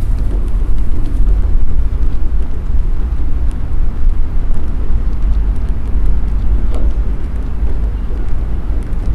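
Wind buffeting the microphone of a head-worn camera: a loud, uneven low rumble over general outdoor background noise.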